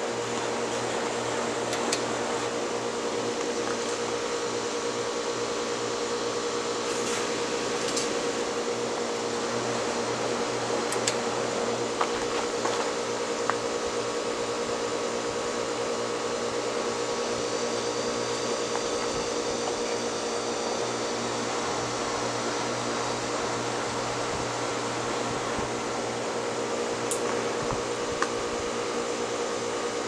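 Southern Fan Co. Tara ceiling fan running below its top speed: a steady motor hum with a rush of air from the spinning blades, and an occasional faint tick.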